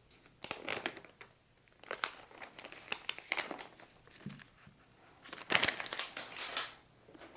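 Thin clear plastic protective film crinkling as it is peeled off a small plastic device, in irregular bursts that are loudest about five and a half seconds in.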